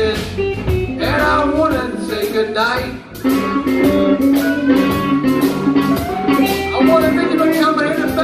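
Live blues band playing with electric guitar, bass and drums, its lead line bending the pitch of its notes.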